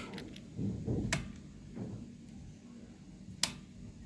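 Two sharp clicks, one about a second in and a louder one near the end, over faint low handling noise.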